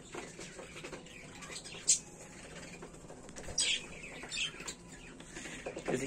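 Faint background chirps of pet budgerigars, a few short high calls in the second half, with a single sharp click about two seconds in.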